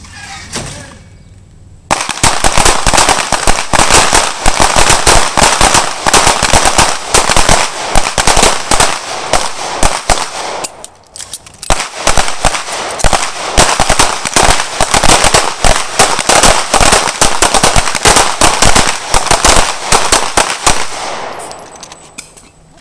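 Many semi-automatic pistols firing at once along a firing line: a rapid, overlapping barrage of handgun shots that starts about two seconds in, thins briefly near the middle, and dies away near the end.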